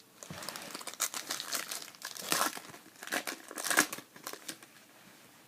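Foil trading-card pack wrapper being torn open and crinkled by hand, a run of crackling rustles for about four seconds with the loudest crinkles about two and four seconds in.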